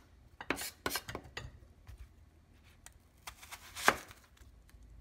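Chef's knife knocking on a wooden cutting board, five or six quick chops in the first second and a half. About four seconds in comes a longer, louder rubbing sound against the board.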